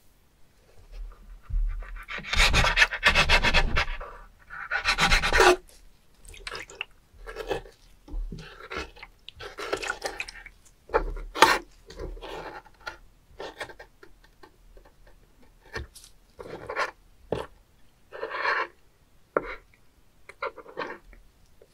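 Kitchen knife cutting open and scraping a live spoon worm on a wet wooden cutting board: irregular rasping scrapes of the blade against the wood, two long ones in the first few seconds, then shorter separate strokes.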